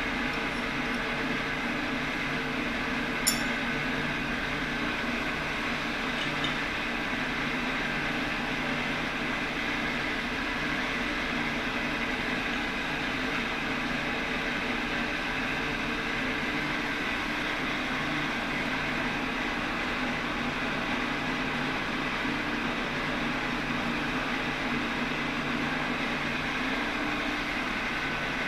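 Steady hum of running machine-shop machinery, even and unbroken with no cutting rhythm, and a single sharp click about three seconds in.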